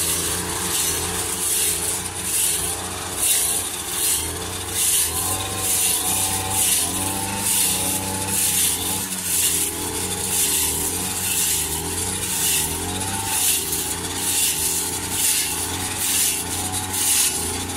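Engine-driven brush cutter running steadily as its blade shreds dried grass into chaff, with a rasping swish about twice a second as it sweeps through the hay.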